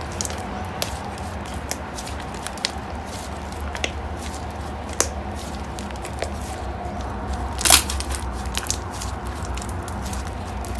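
Slime being pressed and worked by hand, giving scattered small clicking pops, with one louder, longer crackle about seven and a half seconds in, over a steady low hum.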